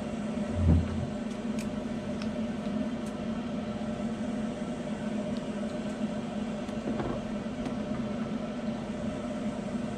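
Steady mechanical hum, with one dull thump under a second in and a few faint clicks.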